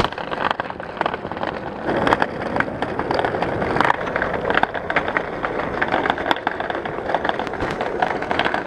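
Small hard wheels rolling fast down a paved hill: a steady rushing noise with many sharp clicks and rattles as they run over cracks and rough spots.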